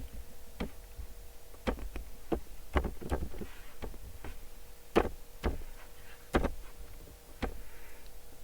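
Sharp clicks from operating a computer, about nine at uneven intervals, over a faint steady hum.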